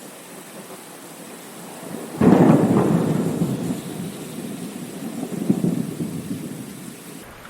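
Steady rain with a sudden clap of thunder about two seconds in that rumbles on, swells again, and dies away near the end.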